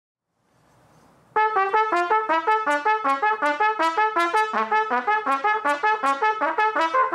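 Trumpet played solo: after a quiet lead-in, a fast passage of short detached notes, about five or six a second, leaping up and down in pitch.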